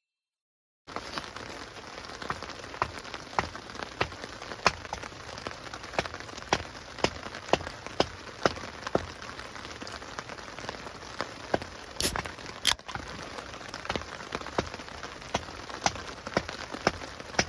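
Food sizzling on a grill: a steady hiss with irregular sharp pops and crackles, two louder cracks about two-thirds of the way through.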